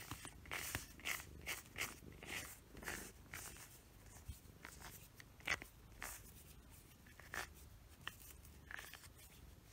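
Fingers pulling clumps of shed cat fur off the rubber nubs of a grooming glove: a faint run of short, irregular scratchy rustles.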